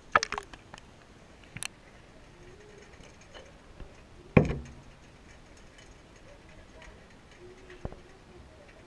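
Muffled underwater sound from a submerged action camera's housing: a few sharp clicks and knocks from handling, the loudest about four and a half seconds in, over a low hiss.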